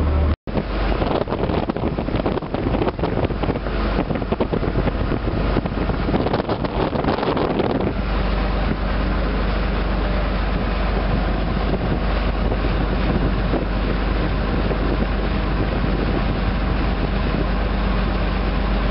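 Riverboat engine running steadily under way, a constant low drone, with wind buffeting the microphone for the first several seconds.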